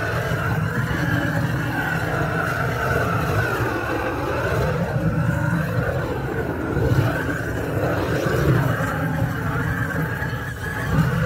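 Gas blowtorch flame burning with a steady roar while a wooden beehive is scorched to kill moths, mites and germs, its pitch wavering slightly as the flame is moved over the wood.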